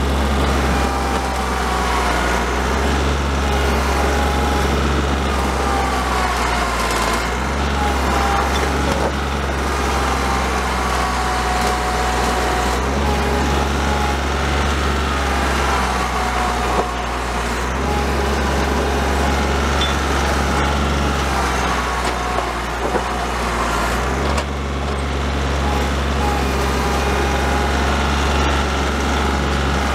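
Compact loader tractor's engine running under load as it pushes through deep snow. The engine note shifts every few seconds, with a wavering whine above it.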